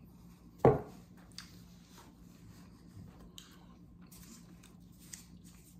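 A person eating quietly: faint chewing and small clicks of a fork on food and a container, over a faint steady hum. One brief, loud vocal noise comes about two-thirds of a second in.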